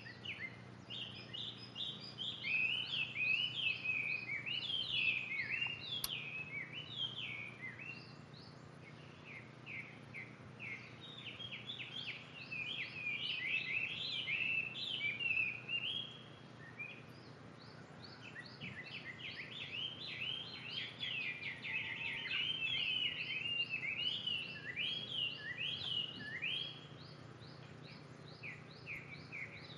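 Bird calls: long runs of rapid, high chirps and short down-slurred notes, in bouts with a few quieter pauses.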